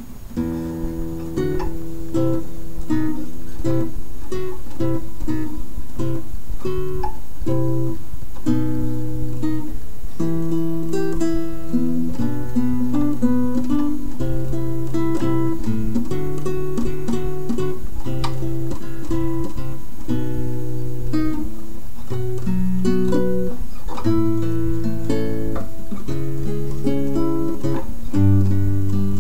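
Instrumental background music: a guitar playing a continuous picked piece with low bass notes beneath.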